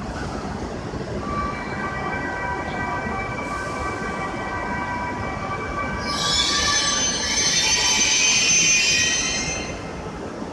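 A shinkansen train creeping in slowly along the platform to couple, with a steady whine of several tones from about a second in. About six seconds in a loud, high-pitched squeal from the train takes over and dies away near the end.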